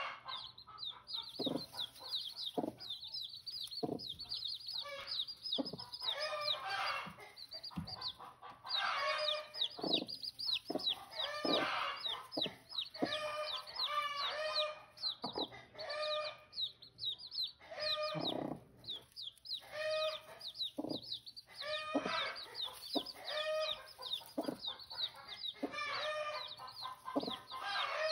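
Newly hatched chicks peeping continuously, many short high-pitched, downward-slurred cheeps a second, over repeated clucking and calls from adult chickens.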